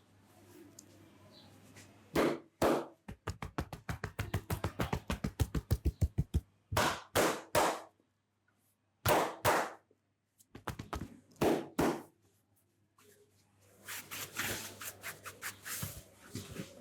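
Hands striking the head during a head massage: two slaps, then a fast run of chopping taps about seven a second, then slaps in spaced pairs and threes, and a softer, quicker patter near the end.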